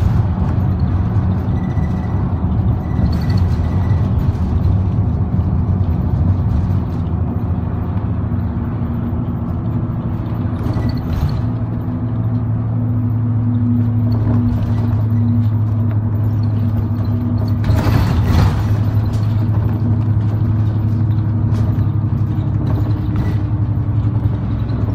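A route bus's engine hum and road noise heard from inside the cabin as it drives along at a steady pace, with a brief rush of louder noise about three quarters of the way through.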